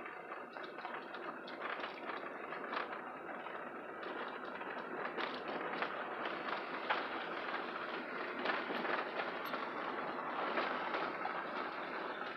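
Car rolling along a gravel back road: a steady rumble of tyre noise, dotted with many small knocks and stone clicks.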